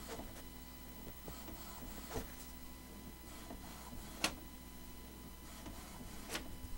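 Lexmark X5495 all-in-one inkjet printer printing its alignment test page. It hums low in passes of about a second, with a sharp click roughly every two seconds.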